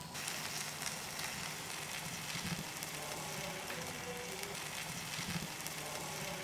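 Food sizzling, a steady hiss with fine crackles that starts abruptly.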